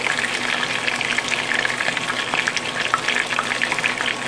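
Battered boneless chicken thighs frying in hot oil in a pan on medium heat: a steady sizzle with dense, continuous crackling pops.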